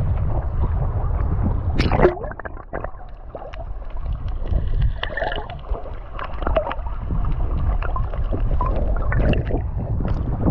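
Seawater sloshing and slapping against a camera at the surface. About two seconds in there is a sharp splash as it goes under, and the sound turns muffled and quieter, with gurgling and small clicks underwater, before more splashes near the end as it comes back up.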